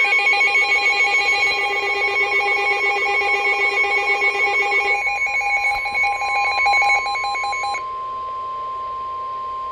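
NOAA Weather Radio emergency alert opening: rapid electronic data chirps and pulsing alarm beeps for the first several seconds, then a single steady warning tone held alone.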